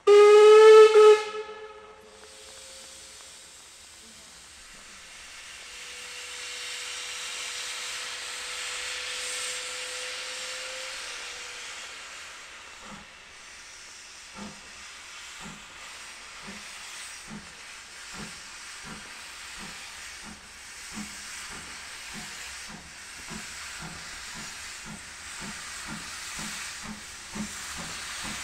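A saddle-tank steam locomotive's whistle sounds loudly once for about a second and a half. Then steam hisses from the open cylinder drain cocks as the engine starts away. From about halfway, the exhaust beats come in slowly and quicken steadily as the train gathers speed.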